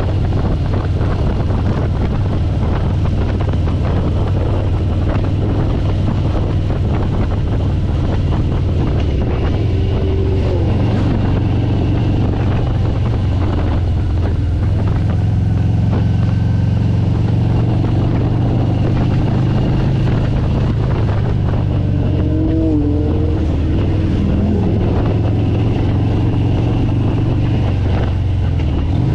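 A vehicle engine running steadily on the move, with heavy wind noise on the microphone.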